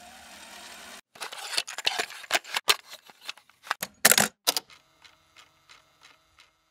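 Cassette tape being swapped in a cassette player: a quick flurry of sharp plastic clicks and clatter as one tape comes out and the next goes in, then a faint, even ticking from the deck's mechanism for a couple of seconds.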